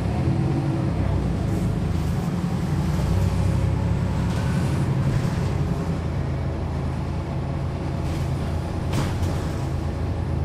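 Cummins ISL9 diesel engine of a 2011 NABI 40-foot transit bus running with a steady low drone. Its note changes about halfway through, and there is a short sharp sound about nine seconds in.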